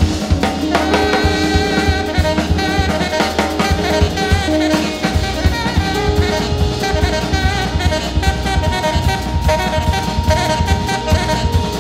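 Live jazz: a tenor saxophone improvises a melodic line over a busy drum kit.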